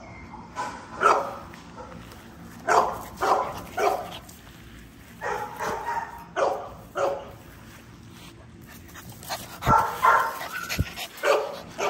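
French bulldog barking repeatedly in short bursts every second or two, with a brief pause before a last run of barks near the end.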